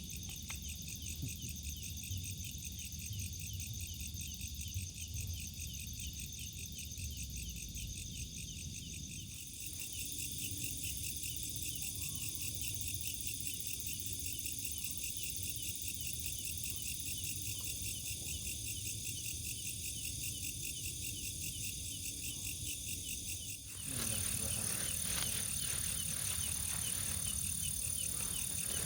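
Night chorus of crickets and other insects, a dense, steady high-pitched trilling and chirping that grows stronger about ten seconds in. A broader rushing noise joins near the end.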